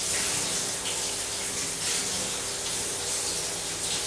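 Kitchen tap running steadily over cut broccoli and cauliflower florets as they are rinsed.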